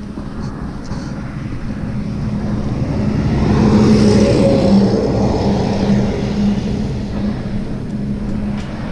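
A truck passing by on the road. Its engine hum and tyre noise swell to a peak about four seconds in, then slowly fade.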